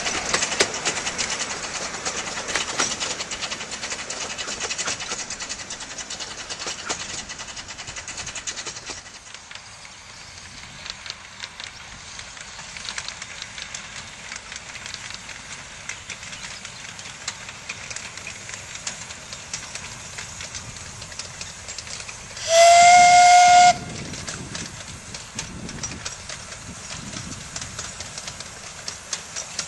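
Narrow-gauge steam locomotive and its carriages running along the line, the running noise and rail clatter loud at first and dropping away after about nine seconds. Around two-thirds of the way through, the engine sounds its steam whistle once, a single steady note about a second long and the loudest sound heard.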